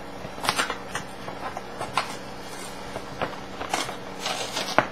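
Cardboard box of microwave fries being opened at its tab and handled, with scattered crinkles and crackles of packaging.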